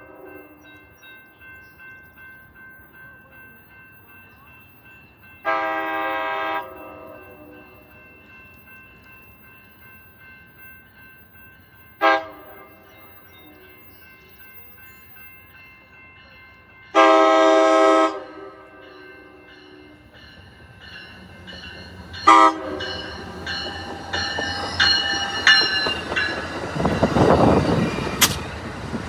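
Amtrak California passenger train's horn sounding chord blasts: a long one about five seconds in, a short one near twelve seconds, another long one around seventeen seconds and a short one around twenty-two. After that the train's wheels and running gear rumble and clatter, growing louder as it pulls in.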